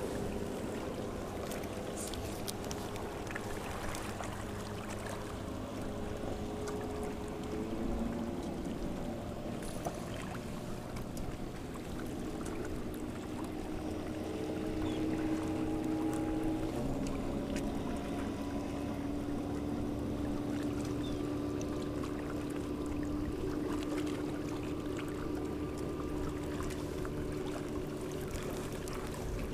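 Steady drone of a distant motor, its pitch stepping lower about two-thirds of the way through, over a hiss of wind and water.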